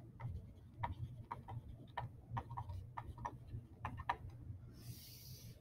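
Faint, irregular clicks of a stylus tapping a pen tablet while handwriting, over a steady low hum. A short hiss comes near the end.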